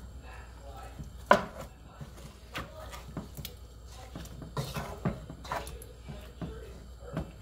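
Wooden spoon stirring chunks of raw goat meat in a large aluminium pot, knocking against the pot at irregular intervals, one knock loud about a second in and the rest softer.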